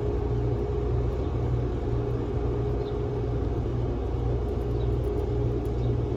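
Steady low rumble and hum with a faint constant higher tone, unchanging throughout.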